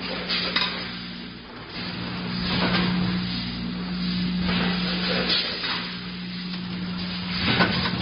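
Automatic coffee bean packaging machine running: a steady hum with recurring rushing, rubbing noises and a few sharp clicks as its stations cycle.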